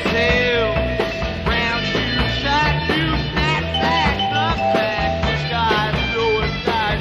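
1966 psychedelic rock band playing. Lead lines bend up and down in pitch over steady bass and regular drum hits, with some held notes.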